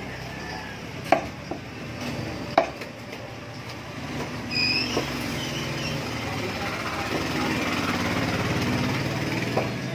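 A large knife chopping through yellowfin tuna on a wooden block: two sharp chops about a second and a half apart, then a few lighter knocks. Steady traffic noise grows louder in the second half.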